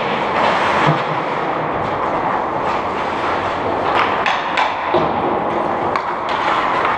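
Indoor ice rink ambience during a hockey game: a steady noisy rumble, with a scattering of short knocks and clacks from sticks, pucks and skates in play.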